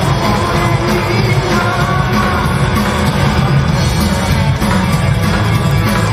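Loud rock-and-roll music with a singing voice, playing steadily without a break.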